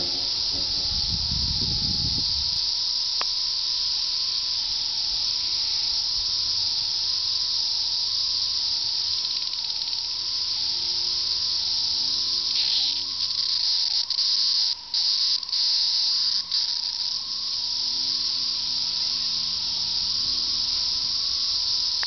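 Dense chorus of Brood XIII periodical cicadas: a loud, steady, high-pitched drone with a fainter wavering tone beneath it. A brief low rumble sounds in the first couple of seconds.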